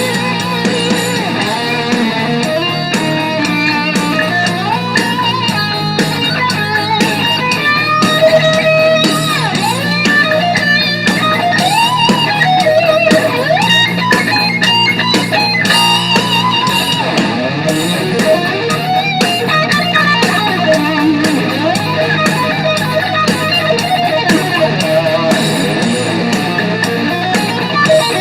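Instrumental section of a heavy metal song: an electric lead guitar plays a melodic line with bending notes over distorted rhythm guitar and a steady drum beat.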